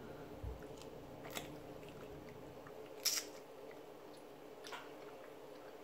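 Faint sounds of a person chewing and eating a piece of boiled seafood, with a few soft mouth clicks and smacks, the clearest about three seconds in.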